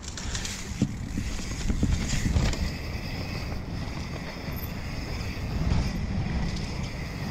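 Mountain bike descending fast on a leaf-covered dirt trail: tyres rumbling over the ground with wind buffeting the action camera's microphone, and a few knocks from the bike over bumps between about one and two and a half seconds in.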